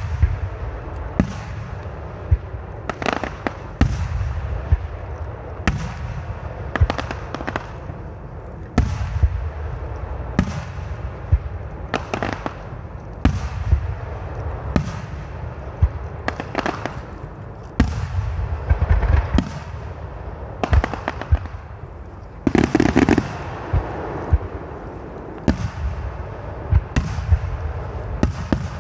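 Aerial firework shells bursting, a sharp bang about every one to two seconds, each followed by a rolling echo, over a continuous low rumble. A little past two-thirds of the way through, the bangs come thicker and louder.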